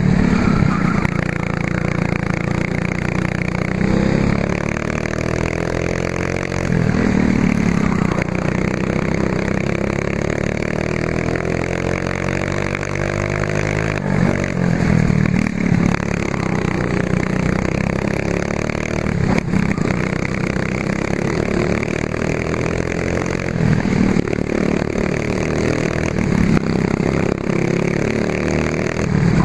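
Racing kart engine at full throttle, heard close up from on board. Its pitch climbs along each straight and falls away into each corner, about five times over, over a constant rush of wind and track noise.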